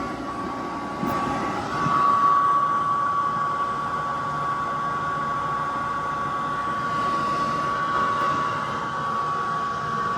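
Cruise N Comfort air conditioner's indoor blower running on its second of three speeds: a steady rush of air with a thin, steady whine. It gets louder about a second and a half in.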